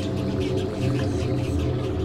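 Low, sustained background music with a pulsing bass.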